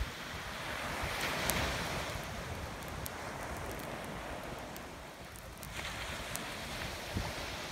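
Ocean surf washing up a sandy beach, swelling about a second in and again near six seconds, with wind rumbling on the microphone.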